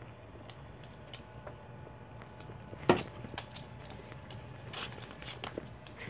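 Dogs moving about on a wood floor and rug: scattered light clicks and ticks, with one short, much louder sound about three seconds in.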